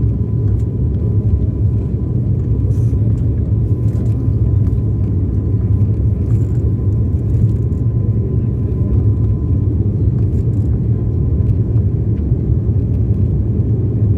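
Steady low drone of an airliner's cabin in flight, engine and airflow noise, with a faint thin whine held steady above it.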